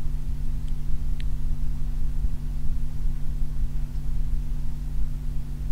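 A steady low hum with a rumble beneath it, even and unchanging, with a single faint tick about a second in.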